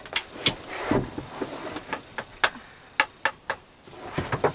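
A dozen or so sharp, irregular clicks and light taps from hands working the vinyl plank and a length of trim.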